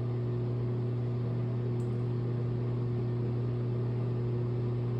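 A steady low hum of a small motor or electrical appliance, one even tone with overtones, with a faint tick about two seconds in.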